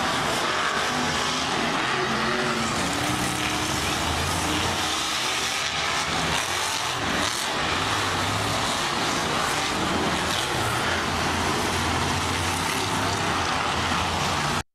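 Monster truck engines running and revving, their pitch rising and falling as the trucks drive around the dirt track.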